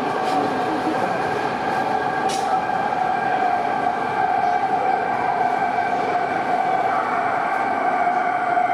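Škoda Varsovia metro train approaching through the tunnel: a steady whine of several tones from its traction drive over the continuous rumble of its wheels on the rails.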